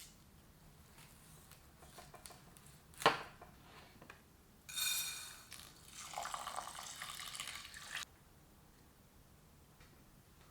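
Water from a tap running into a pot or bowl for about three seconds and cutting off suddenly, after a single sharp knock about three seconds in.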